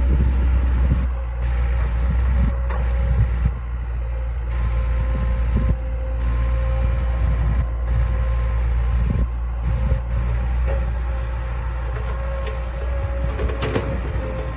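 Heavy diesel excavator working: the engine runs steadily with a whine over it, and scattered knocks and clanks, with a cluster of sharper knocks near the end.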